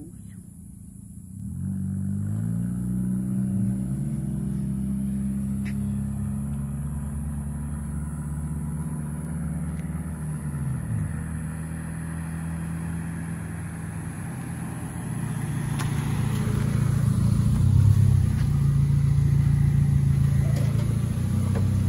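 A 1998 Honda Civic LX's four-cylinder engine running with the muffler off, so the exhaust is loud and open. The engine note rises and falls as the car drives, then grows louder near the end as it pulls up close.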